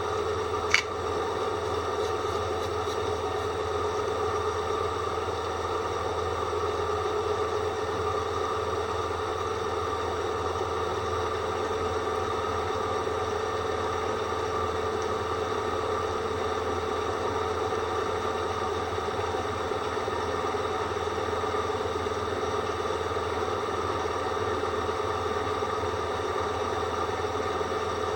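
Drill running with a dull bit that whistles: a steady whine made of several fixed tones over a low hum, with one sharp click about a second in.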